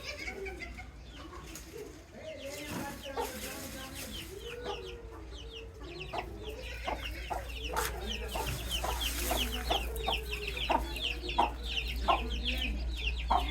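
Baby chicks peeping continuously in many short, high, falling notes, with lower clucking calls and scattered sharp ticks among them, over a steady low hum.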